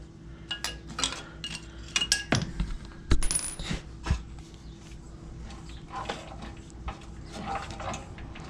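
Metal clinks and taps as the bolts and the metal valve cover come off a generator's small engine. There are several sharp clinks in the first four seconds, then quieter handling.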